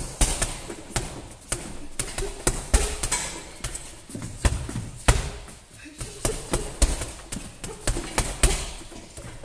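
A gloved fighter's strikes landing on a hanging heavy punching bag: a rapid, uneven series of sharp thuds, often in quick combinations of two or three, thinning out shortly before the end.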